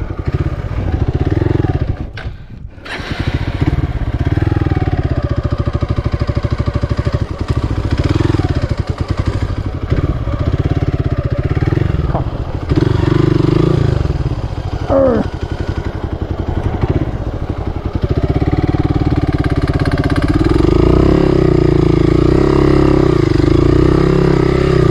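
Hero Xpulse 200's single-cylinder four-stroke engine running as the bike is ridden off-road, its revs rising and falling with the throttle. The engine drops back briefly about two seconds in, then runs steadier and louder over the last few seconds.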